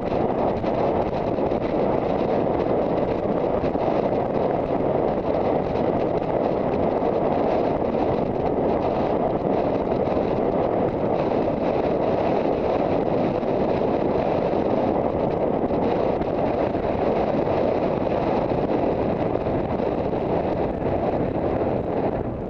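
Steady wind rushing and buffeting over the microphone of a rider's helmet camera while galloping cross-country on horseback.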